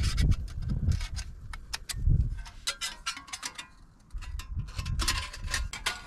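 Thin titanium panels of a folding wood-burning stove clicking and clinking as they are handled and unfolded, with many sharp clicks, some light metallic ringing near the end, and low handling thumps.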